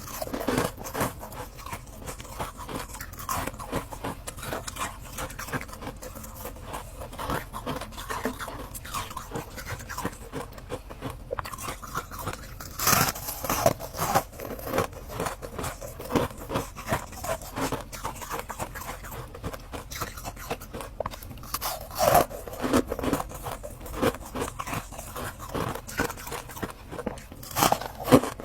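Ice being bitten and crunched close to the microphone: a long run of sharp, crackly crunches, with louder bites about halfway through and again about three-quarters of the way in.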